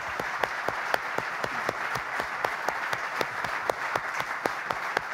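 Audience applauding steadily, with a few nearby hand claps standing out sharply.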